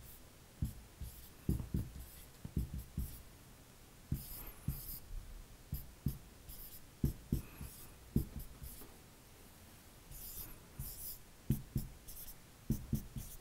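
Marker writing on a whiteboard: a run of short, irregular taps as letters and bond lines are drawn, with a few high-pitched squeaks of the felt tip on the board.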